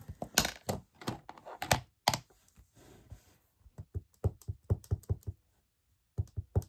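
A run of quick, irregular light taps and knocks: a stamp being tapped repeatedly onto a black ink pad to ink it. The taps come in clusters, densest between about four and five seconds in, with a brief pause near the end.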